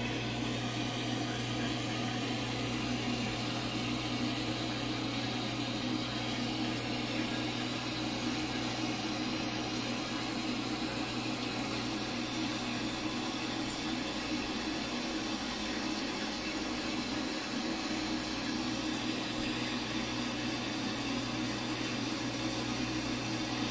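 Steady low mechanical hum with a constant hiss and no separate events.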